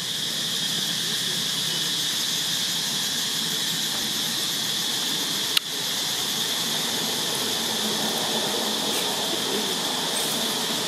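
Steady, high-pitched drone of an insect chorus, with one sharp click about five and a half seconds in.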